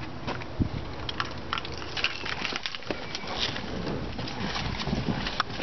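Irregular soft clicks, knocks and rustling as someone climbs into a car's driver's seat, camera in hand.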